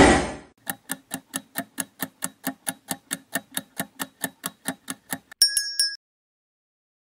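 Quiz countdown sound effect: a short rushing noise, then a clock-like ticking, about four and a half ticks a second for about four and a half seconds, ending in a brief bright chime as the answer is revealed.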